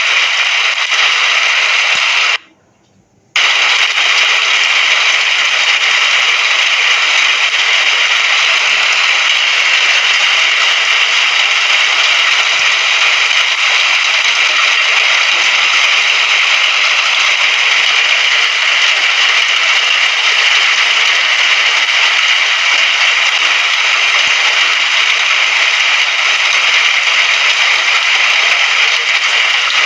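Rain sound effect: a steady, dense hiss of falling rain that cuts out for under a second about two and a half seconds in, then carries on unchanged.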